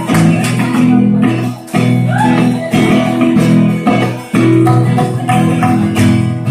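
Live band music led by a strummed acoustic guitar, pausing briefly twice.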